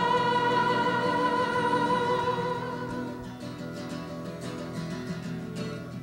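A woman singing one long held note over acoustic guitar. The note fades out about two and a half seconds in, leaving the acoustic guitar strumming.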